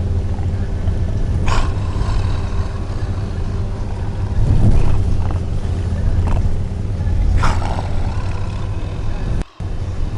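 A person snoring in loud breaths a few seconds apart, over the steady low drone of a van's engine and road noise. The sound cuts out for a moment near the end.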